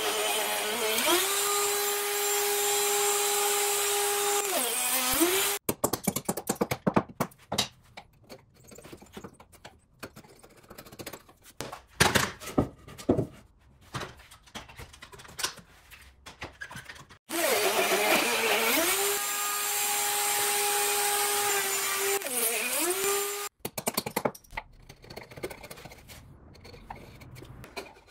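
Electric trim router run twice, each time for about six seconds, cutting a groove along a clamped guide board in hardwood. Each run spins up to a steady high whine, dips in pitch under load near its end, and then switches off. Between the two runs come scattered clicks and knocks of clamps and wood being handled.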